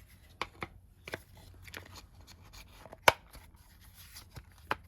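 Small clicks and taps of a Givi lock's barrel and housing parts being fitted back together by hand, with a sharp louder click about three seconds in.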